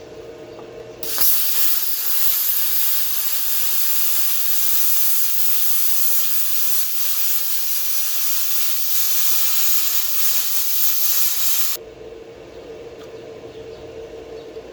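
Plasma cutter cutting steel: a loud, steady hiss of the arc and air jet that starts abruptly about a second in and cuts off sharply after about ten seconds.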